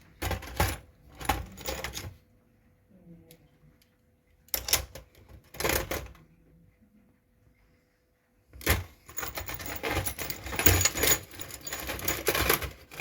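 Small metal bicycle parts clinking and rattling together as they are handled and laid out after ultrasonic cleaning. They come in three bursts: at the start, around five seconds in, and a longer run from about nine seconds to the end.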